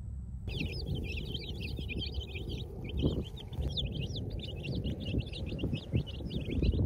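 A flock of baby chicks peeping nonstop, many short high chirps overlapping, starting about half a second in. Underneath runs a low rumble with a few thumps.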